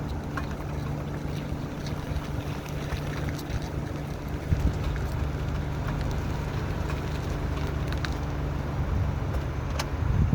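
A vehicle running with a steady low hum and rumble, with scattered clicks and a couple of louder knocks as it is turned. The owner reports this as a noise from the front wheels when turning, heard more when turning in reverse.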